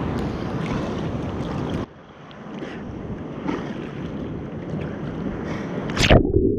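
Surf sloshing and splashing around an action camera held at the water's surface. The sound is loud for the first couple of seconds, then drops off suddenly and continues more quietly. Near the end there is a sharp splash as the camera dips under, and the sound goes muffled.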